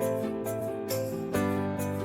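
Background music: steady notes with plucked-string chords and a light, regular beat.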